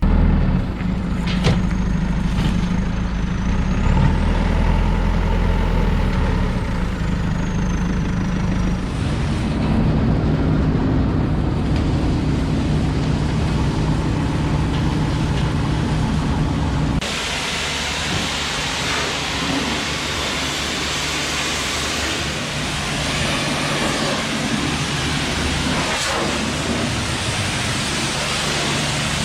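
John Deere combine harvester running, a steady low engine drone. About 17 seconds in the sound changes abruptly to a lighter drone with more hiss.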